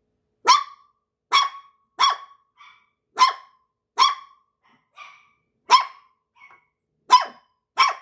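A small puppy barking in short, high-pitched yaps: about eight loud ones, a second or less apart, with a few quieter yips between.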